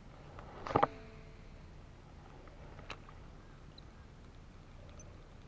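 Cast with a baitcasting reel: a short rush of sound with a brief ringing tone about a second in, then a single sharp click near three seconds, over a faint, even outdoor background.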